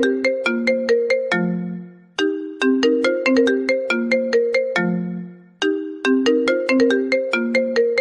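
iPhone ringtone playing: a short melody of quick, bright, sharply struck notes that ends on a held low note, repeating about every three and a half seconds.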